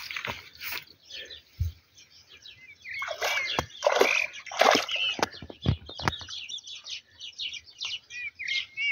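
A hooked black bass splashing and thrashing at the water's surface while it is played on the line, loudest in a run of splashes from about three to six seconds in. Small birds chirp throughout, more densely near the end.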